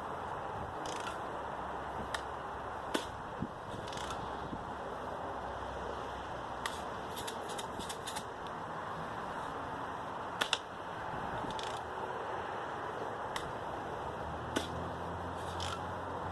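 A BB gun firing: scattered sharp cracks and clicks over a steady hiss, the loudest a quick pair about ten seconds in.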